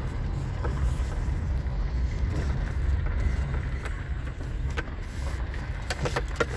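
Steady low rumble of a car being driven, heard from inside the cabin: engine and tyre noise, with a few sharp clicks or rattles in the last two seconds.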